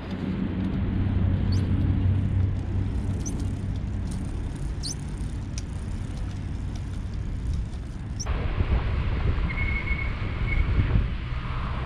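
Outdoor ambience: a steady low hum of traffic with a few short bird chirps. About eight seconds in it changes to wind rumble on the microphone of a camera riding on a moving bicycle, with a brief high steady tone.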